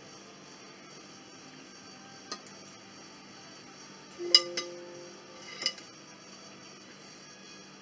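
Kitchenware clinking as marinated beef is drained through a strainer: a light tap about two seconds in, a sharp clink with a short ringing tone a little after four seconds, and another clink near six seconds.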